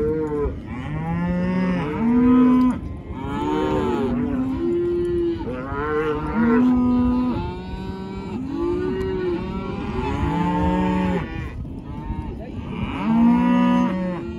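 Many cattle bawling and mooing, long calls from several animals overlapping one after another.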